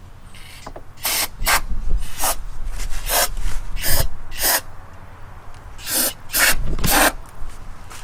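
Aerosol brake cleaner sprayed in short hissing bursts, about nine in all, into the threaded nut holes in a truck frame to flush out road grime.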